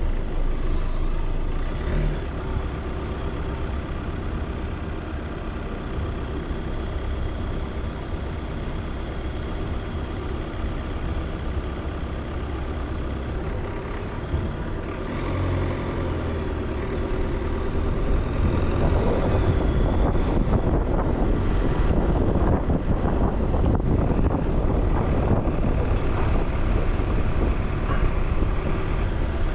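Car driving through city traffic: steady engine and road noise, getting louder about two-thirds of the way through.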